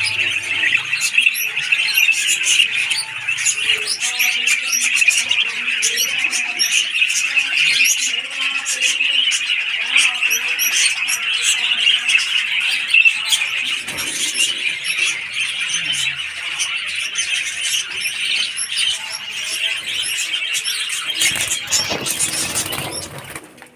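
A dense, continuous chorus of many birds chirping and chattering over one another, with occasional squawks. It stops abruptly near the end.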